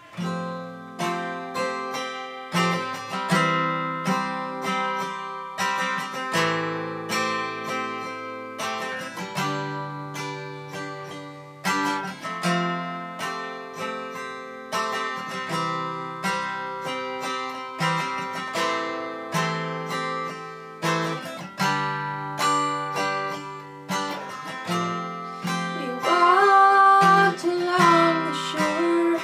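Acoustic steel-string guitar playing a song intro, a repeating chord progression of regular strums. About 26 seconds in, a woman's singing voice comes in over the guitar.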